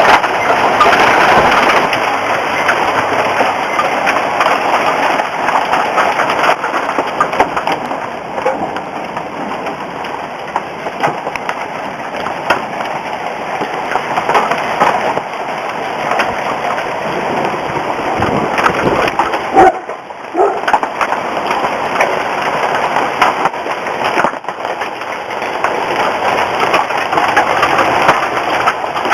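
Hail pelting down, a dense steady crackle of countless small stones hitting hard surfaces, easing briefly about two-thirds of the way through.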